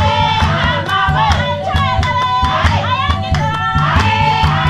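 A group of voices singing together in a traditional Ethiopian chant, several pitches gliding and overlapping, over a steady, evenly spaced drum beat.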